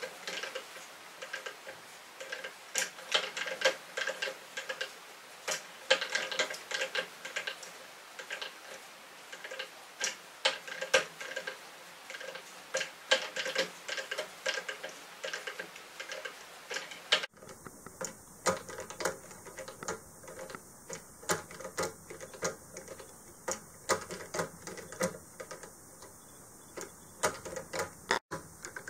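Homemade kinetic sculpture's mechanism clicking and clacking irregularly as its weighted arms swing and spin. About seventeen seconds in the background changes and a faint steady high whine joins the clicks.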